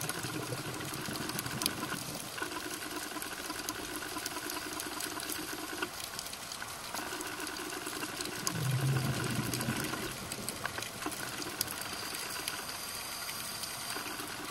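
Underwater sound through a diving camera's housing: a steady whirring hum with water noise that breaks off briefly a few times, and a louder low rumble about eight and a half seconds in.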